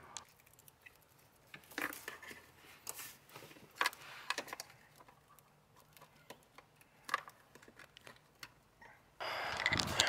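A few faint, scattered small clicks and rustles of hands working a car's under-dash wiring harness, pushing a plastic plug connector back into its socket.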